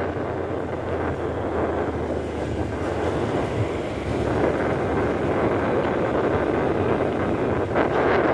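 Motor scooter running along a road, its engine a low steady hum under heavy wind rushing over the microphone.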